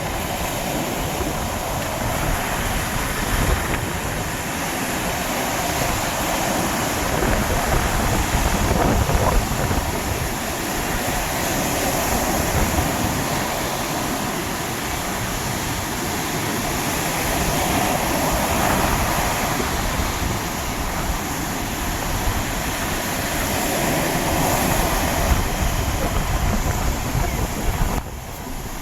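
Sea waves breaking on the shore: a continuous loud roar of surf that swells and eases every few seconds, over a ragged low rumble.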